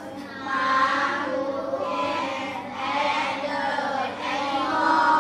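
A class of children reading an English passage aloud in unison, many voices speaking together as one chorus.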